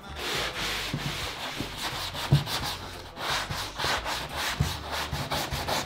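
Hand sanding block rubbed back and forth over dried spackle on drywall, in quick repeated scrubbing strokes.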